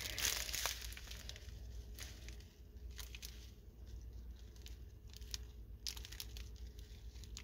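Faint, intermittent crinkling of a clear plastic strip of sealed diamond-painting drill bags being handled, with a few soft clicks; a little louder in the first second.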